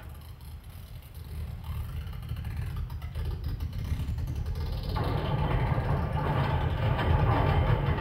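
Soundtrack of an abstract video installation: a low rumbling drone that swells in level, with a harsher, noisier layer joining about five seconds in.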